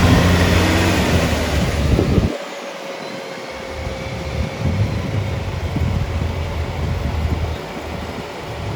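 Off-road 4x4 engine revving, its pitch rising and falling. A little over two seconds in the sound drops off abruptly, and a lower, uneven engine rumble follows.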